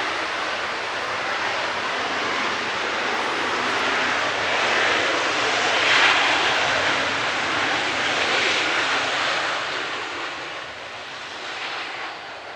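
Airbus A330-343 airliner's Rolls-Royce Trent 700 jet engines running: a steady rush that grows louder to a peak about halfway, then fades away near the end as the plane moves past.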